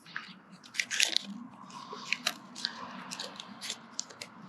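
Backing paper crinkling and crackling in irregular sharp snaps as it is rubbed over a vinyl decal to press its edges down.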